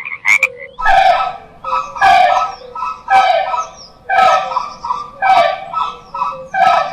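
Dog barking in a slow series: six drawn-out barks about a second apart.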